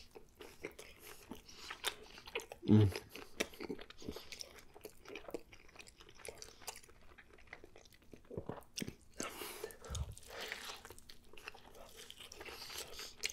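Close-miked chewing of a mouthful of breakfast burger on a toasted everything bagel: many short, wet mouth clicks and smacks, with a contented "Mmm" about three seconds in.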